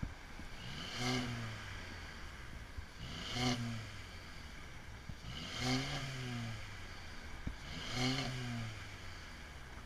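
Stock 2014 Mercedes-Benz CLA 250 turbocharged 2.0-litre four-cylinder idling from its factory exhaust, blipped four times about two seconds apart, each rev rising and falling back to idle. Heard from behind the tailpipes through a camera's protective case.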